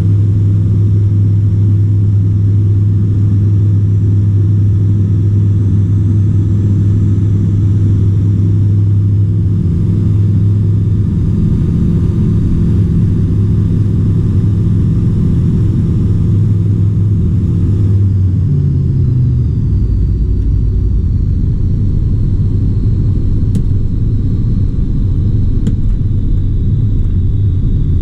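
Dynamic WT9 light aircraft's propeller engine heard from inside the cockpit, running steadily at climb power; about 18 seconds in the pitch drops as the power is pulled back for the approach, and it runs on at low power with more rush of air.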